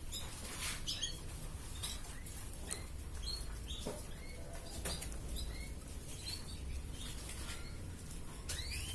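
Crested canary giving short, scattered chirps and call notes rather than a continuous song, with a few sharp clicks between them.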